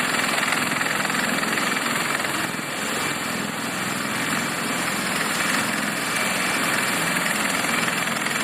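Large military helicopters, CH-53 type, running on the ground with rotors turning: a steady rush of turbine and rotor noise with a thin high whine over it.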